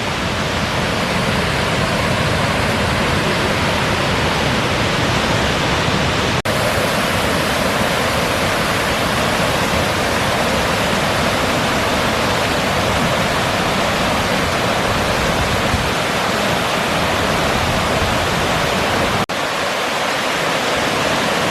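Waterfall beside a dam pouring in high water: a steady, loud rush of falling water. There are two momentary breaks, about six seconds in and near the end, and after the second the deep rumble thins.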